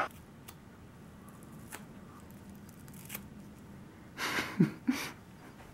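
Scissors snipping through stiff gelled hair spikes: a few faint, separate snips. A little after four seconds comes a louder, breathy sound with a brief vocal grunt.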